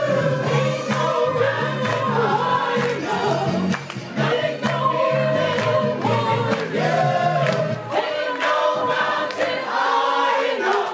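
A choir of mostly women singing together, loud, over a backing track with a steady beat.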